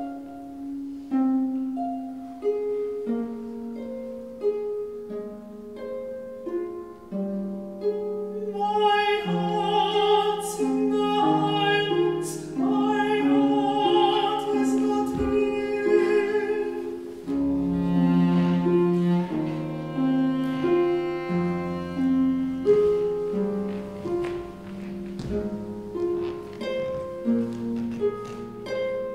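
Slow classical music for pedal harp, cello and male voice: the harp plucks sparse single notes over long-held cello notes, and a male singer holds a long, wavering sung line from about a third of the way in to just past the middle.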